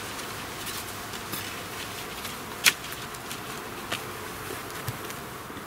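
Freshly cut sticks being pushed and adjusted in a woven wattle bench, giving scattered light wooden clicks and one sharp crack about two and a half seconds in, over a steady high hiss.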